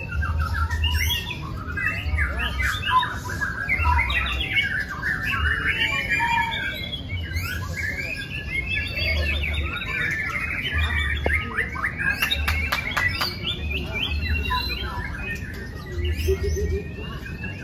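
Several caged white-rumped shamas (murai batu) singing at once, a dense, unbroken tangle of rapid whistled and chattering phrases.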